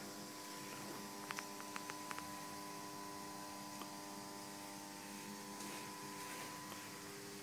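Steady electrical hum made of several even tones under a low hiss, with a few faint clicks about one and a half to two seconds in.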